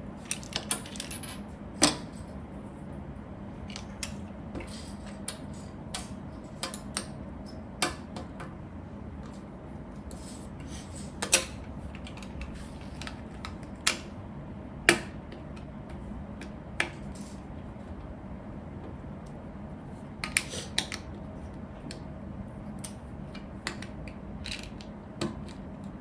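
Plastic Lego pieces clicking and clattering as they are handled and pressed together, in irregular sharp taps, over a faint steady hum.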